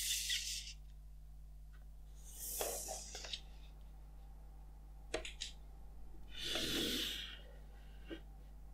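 Hands handling iPhone 11 Pro Max packaging: cardboard box parts and the paper insert sliding and brushing over the table in three short swishes, with a couple of light taps in between.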